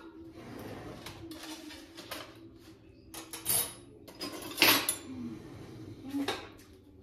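Dishes and cutlery being handled at a kitchen counter: a few short clinks and knocks, the loudest a little past the middle, over faint rustling.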